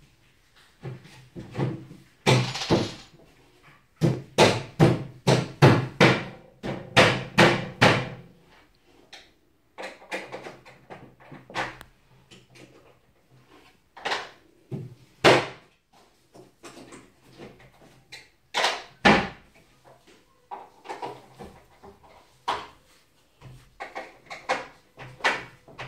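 Repeated knocks and thuds of laminated particleboard bed-frame panels being fitted and pushed together by hand: a few knocks, then a quick run of them, then scattered single knocks with pauses between.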